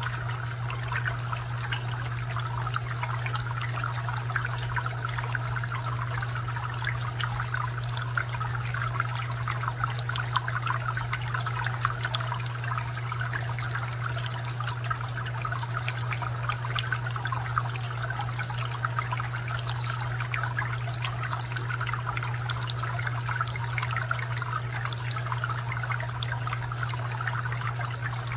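Garden fountain water trickling and splashing continuously and evenly. A steady low hum runs underneath.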